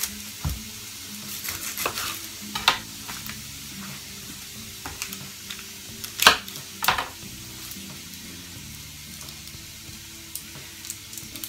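Sausage sizzling in a hot skillet, a steady hiss, with a few sharp knife taps on a plastic cutting board as an onion is cut, the loudest about six seconds in.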